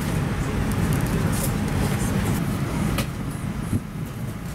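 Steady low rumble of background noise inside an airliner cabin, with a few sharp clicks over it.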